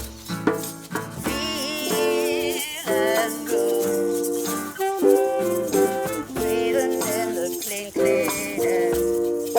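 Music: a tune of held and sliding pitched notes, some wavering.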